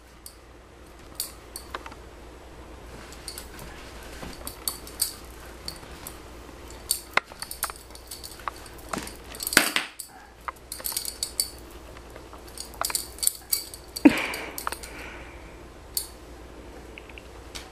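Plastic mardi-gras bead necklace and the shot glass hung on it clicking and clinking in scattered irregular taps as a cat swats at them, with a couple of louder knocks.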